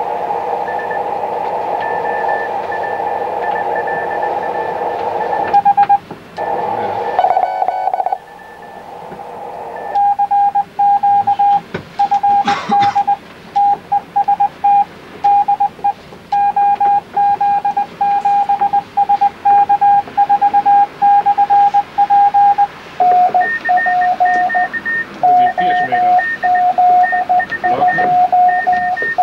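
Morse code (CW) from an amateur radio transceiver: one steady tone keyed on and off in dots and dashes, switching to a slightly lower pitch about two-thirds of the way through. Before the keying starts there is steady receiver hiss with a faint tone.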